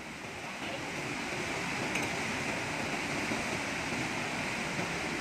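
Steady rush of flowing floodwater, an even hiss with no breaks.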